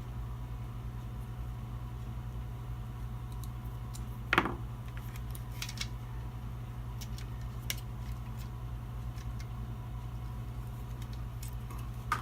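Faint clicks and light taps of small metal tools being handled while a different screwdriver is sought, over a steady low hum. A short rising sound comes about four seconds in.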